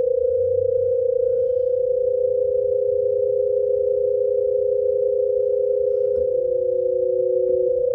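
UFO sound effect: a steady electronic hum tone, joined about a second and a half in by a second, lower tone that drops lower still near the end, over a faint low rumble.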